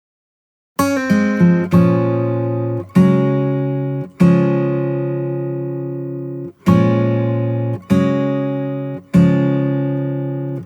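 Background music: an acoustic guitar strums chords, each left to ring out and fade before the next. It starts about a second in, out of dead silence.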